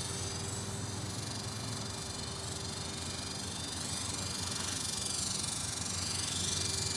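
Electric T-Rex RC helicopter in flight: a steady hiss and whine from its motor and rotor, the high whine slowly rising and falling in pitch as it moves about.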